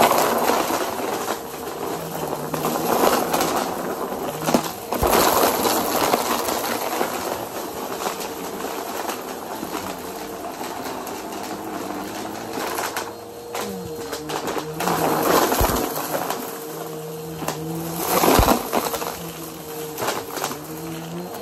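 Bissell PowerForce upright vacuum running with a steady motor whine while it sucks up a pile of lint, packing peanuts and other debris. The sound swells and falls unevenly, with sharp clicks as debris is drawn in.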